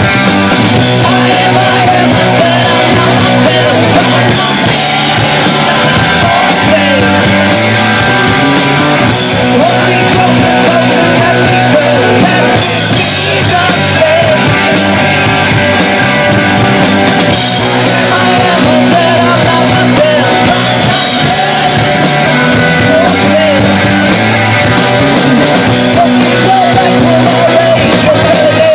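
Live amplified rock band playing loud and steadily: electric guitars, bass guitar and drum kit.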